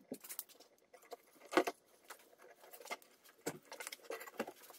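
Scattered light clicks and knocks of metal as the two halves of a Mercedes-Benz M119 V8 intake manifold are handled and pressed together by gloved hands, with louder knocks about a second and a half in and again near the end.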